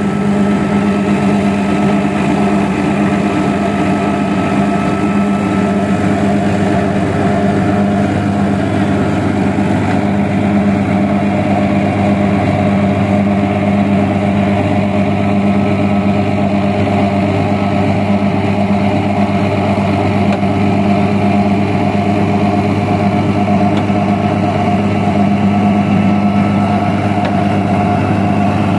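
Tractor diesel engine running at a steady speed while it pulls a mobile clay brick-making machine, with a constant low hum that does not change.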